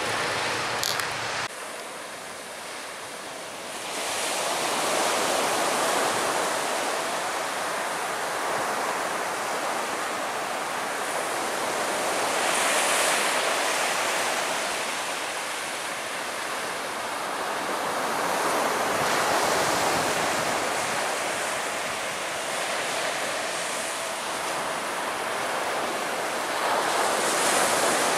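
Surf washing onto the shore as a steady rushing noise that swells and eases every several seconds.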